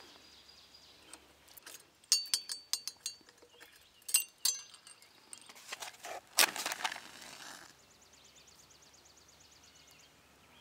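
Metallic clinks and taps of a small brass Lenk alcohol torch being handled, its brass cap and fittings knocking together with short bright rings. About six and a half seconds in comes a scratchy rush lasting about a second.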